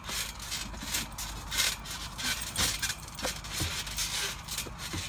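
Scuffing, rustling and creaking from people bouncing on a trampoline's mat and springs, with a few dull thumps in the second half.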